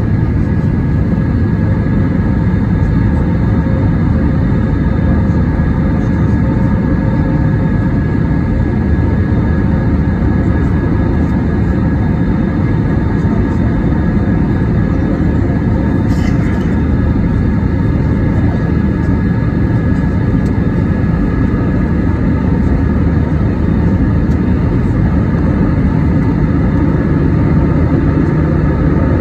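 Steady cabin rumble of an Airbus A320-232 climbing out, heard from a window seat over the wing, from its IAE V2527-A5 turbofans and the airflow, with a few steady high tones running through it.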